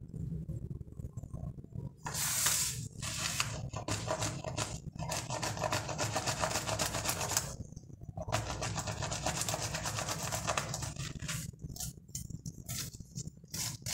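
A bar of soap grated quickly back and forth on a handheld metal grater, a fast, dense scratchy rasping that pauses briefly about eight seconds in. A steady low hum runs underneath.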